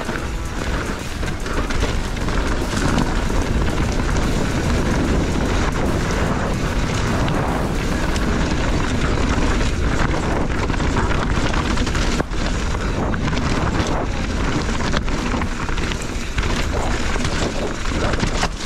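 Mountain bike running fast down a rough enduro trail: heavy wind rumble on the microphone, with the tyres and frame rattling and knocking over the ground.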